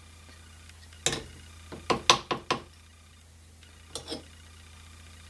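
Sharp metallic clicks and clinks of small metal tools and copper pieces handled on a jewellery bench: one about a second in, a quick run of four around two seconds, and a pair near four seconds.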